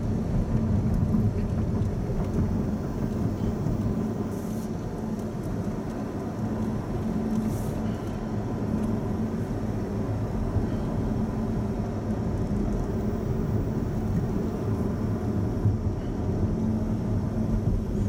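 Steady in-cabin road and engine noise of a Honda Odyssey minivan driving at moderate speed: a low, even rumble from the tyres and engine.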